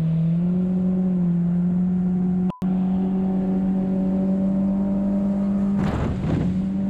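Outboard jet boat engine running at steady high throttle, its pitch stepping up slightly early on. About six seconds in, water splashes against the hull as the boat runs through a riffle.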